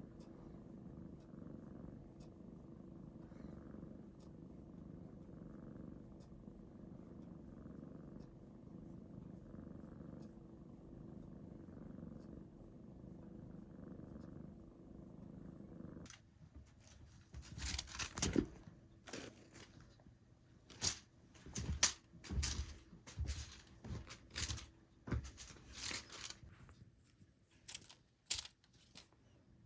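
A cat purring steadily, close up. About sixteen seconds in the purring stops abruptly and a run of irregular rustles, clicks and knocks follows.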